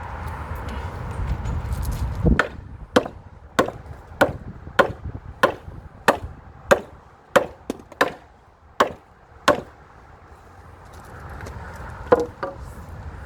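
Hammering on timber: a steady run of about a dozen sharp blows, roughly one and a half a second, then a single blow near the end.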